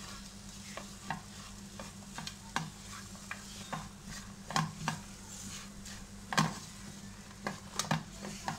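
Spatula stirring chicken, sliced onion and capsicum in a nonstick frying pan, with irregular scrapes and taps against the pan over a steady sizzle.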